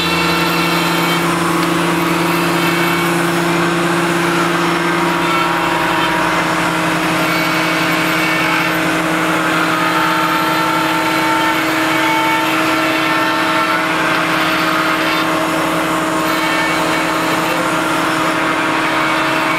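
Electric straight grinder running steadily with a rotary burr cutting into marble: a constant motor whine over a gritty grinding hiss.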